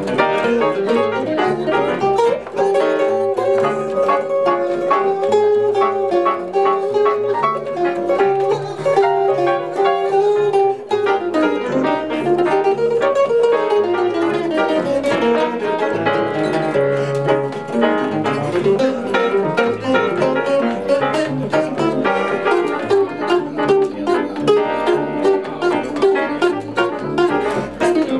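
Live jazz: a hollow-body archtop guitar plays a melodic solo line over plucked upright bass.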